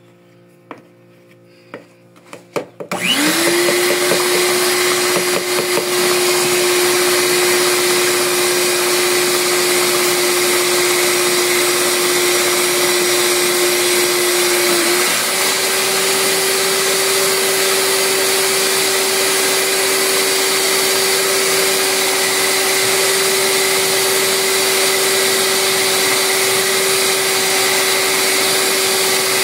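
Mondial Prática stand mixer switching on about three seconds in, its motor whining up to speed and then running steadily as the beaters mix donut batter. The pitch steps up slightly about halfway through.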